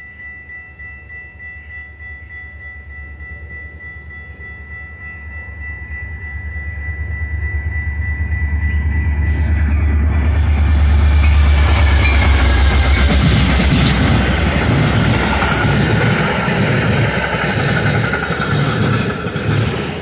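Metra commuter train with a diesel locomotive approaching and passing close. A low engine rumble builds over the first half while a grade-crossing bell rings steadily. About halfway through comes a loud rush of wheels on the rails, then a rhythmic clickety-clack of the cars over the rail joints.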